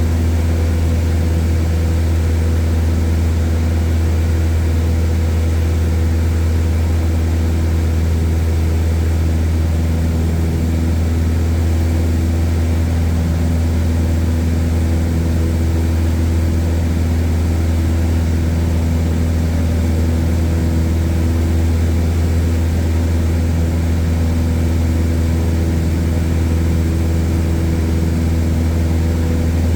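Light airplane's piston engine and propeller running at a steady cruise, heard from inside the cabin as an even, deep drone with a few steady higher tones over it.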